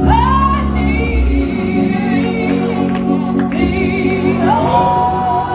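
Gospel singing: voices with wavering, sliding pitches over a steady, sustained instrumental accompaniment.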